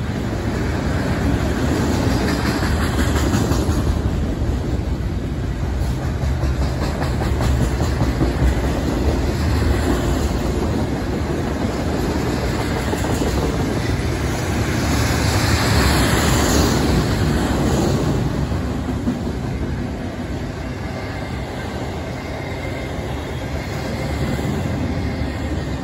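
Double-stack intermodal freight train's container well cars rolling past on the rails, a steady rumble. It grows somewhat quieter over the last several seconds as the end of the train goes by.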